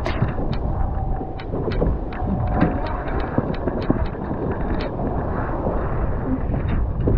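Wind buffeting the microphone and water rushing past the hulls of a Nacra 15 sailing catamaran under way at speed, a steady rumbling wash broken by many small sharp ticks and slaps.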